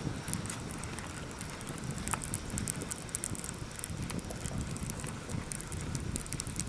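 Wind rumbling on the microphone, with faint irregular ticking from a fishing reel being cranked to retrieve a spinnerbait.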